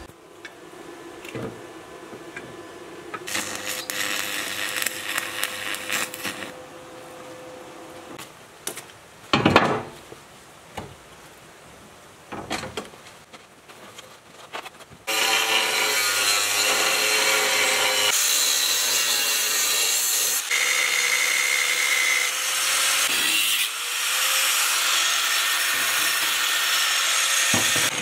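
A power tool cutting through steel plate runs loudly and steadily through the second half. Before it starts there is quieter scraping and knocking of metal, with one sharp clatter just before the middle.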